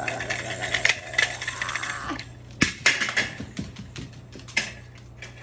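A small toy car clicking and clattering on a hard floor as a cockatoo carries and knocks it about, with a few sharper knocks between about two and a half and four and a half seconds in.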